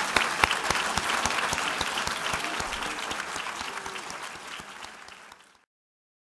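Audience applauding, the clapping fading gradually and then cutting off suddenly to silence a little over five seconds in.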